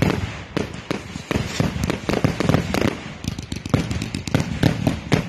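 Multi-shot consumer firework cake firing a rapid barrage: irregular bangs and crackling bursts, several a second.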